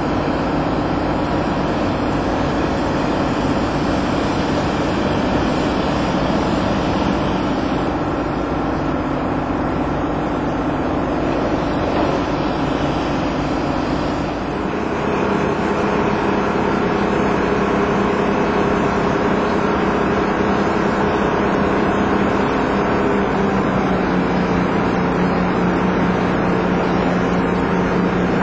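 Boat engine running steadily, a constant hum with several steady tones. About halfway through the note shifts and settles at a slightly different pitch, as if the engine speed changed.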